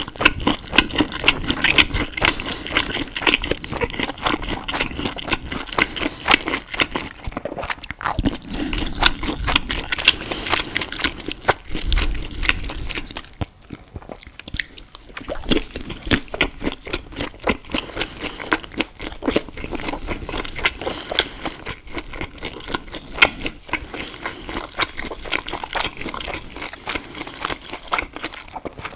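Close-miked eating sounds: steady chewing and biting of pasta and sausage, full of small wet mouth clicks, easing off briefly about halfway through.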